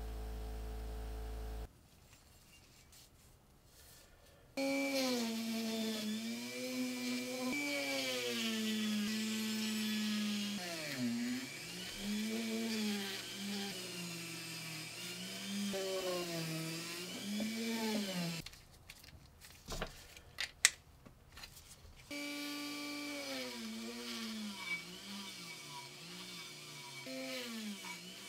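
A bench buffing wheel's motor hums steadily for the first second or two. Then a small rotary tool whines in long spells, its pitch dipping and rising as it is pressed into the metal plate, broken in the middle by a few seconds of sharp clicks.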